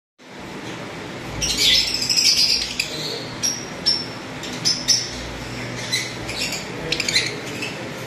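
A cage of lovebirds chirping and chattering: many short, sharp, high-pitched calls overlapping, busiest from about a second and a half in, then coming in scattered bursts.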